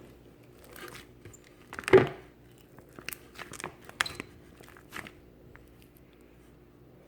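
Hands working slime, giving a string of short squishing pops and clicks, the loudest about two seconds in, then quieting after about five seconds.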